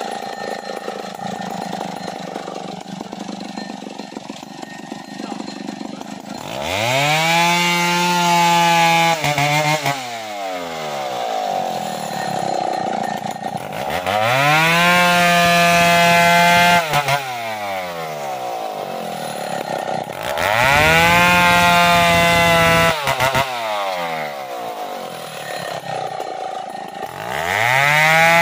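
Stihl two-stroke chainsaw idling, then revved up to full speed four times, each burst held about three seconds before dropping back to idle.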